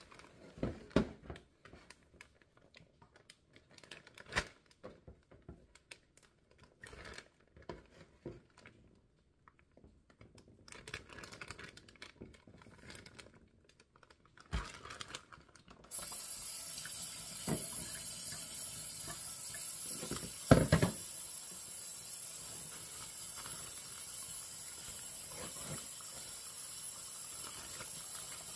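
Plastic zip-top bag crinkling and rustling with scattered knocks at a stainless steel kitchen sink. About halfway through, a tap is turned on and water runs steadily into the sink, with a couple of clunks.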